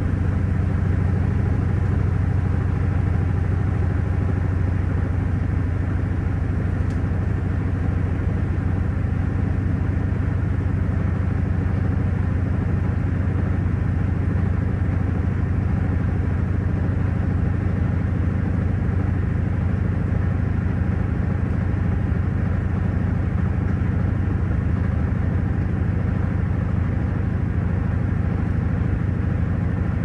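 Panasonic top-loading washing machine in its spin cycle: the tub spinning at speed with a steady low motor hum.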